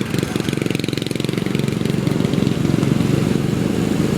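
Riding lawn mower's small engine running steadily, with a rapid even putter.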